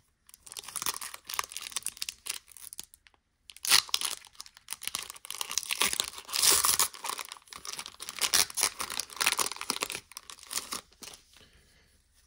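Foil wrapper of a Pokémon trading-card booster pack being torn open and crinkled in the hands, a long run of crackling and tearing with louder rips about four and six and a half seconds in, dying away near the end.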